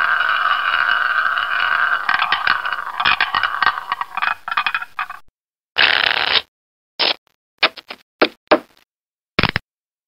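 A hissing noise, steady for about two seconds, then breaking into rapid crackles, and in the second half only short bursts of hiss with dead silence between them.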